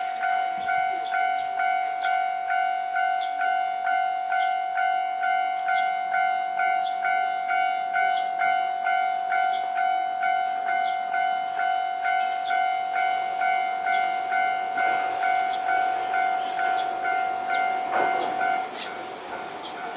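Japanese level-crossing warning bell ringing electronically, a steady ding about twice a second, dropping abruptly in level near the end. From about three-quarters of the way through, a passing tram's rumble sits under it.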